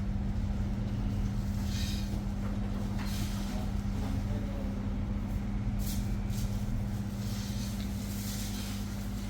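An engine running steadily, a constant low hum with a strong even drone, with a few brief hissing noises over it.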